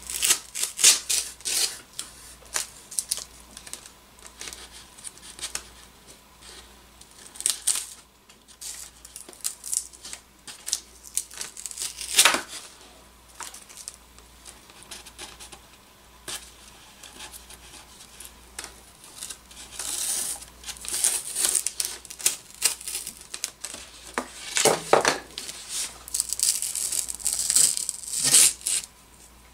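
Blue painter's tape being peeled off a foam float in short, irregular rips, with crinkling as the strips are handled. Two sharper, louder rips come about 12 and 25 seconds in.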